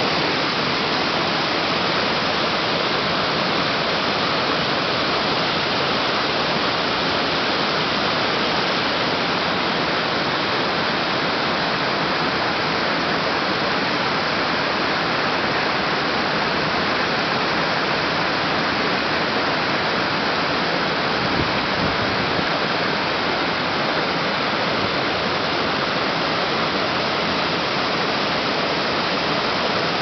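Steady rush of water from a waterfall and a stream cascading over stepped rock ledges.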